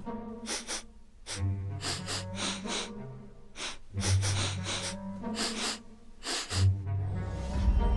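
Background cartoon score: a run of short staccato stabs in an uneven rhythm over held low bass notes.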